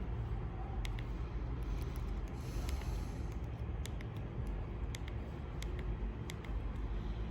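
Steady low background rumble with a scattered series of faint, short clicks.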